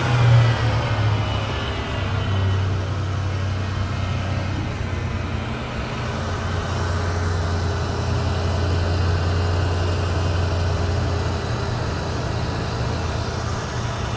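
Ford 5.0 V8 of a 1993 Mustang GT running steadily at a raised idle, revved up and held there by the EEC-IV computer during its cylinder balance test, in which it cuts each injector in turn to check the health of each cylinder.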